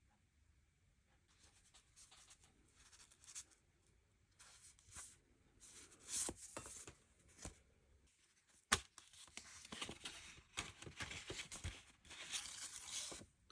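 Packaging being torn open and rustled by hand in irregular bursts, with one sharp click a little past the middle.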